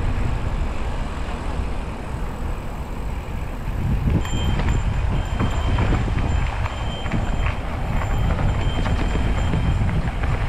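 Wind rushing over the camera microphone as an electric mountain bike rolls down a dirt and gravel trail, with tyres crunching over loose stones and the bike rattling in scattered clicks. A faint, steady high whine joins about four seconds in and fades out near the end.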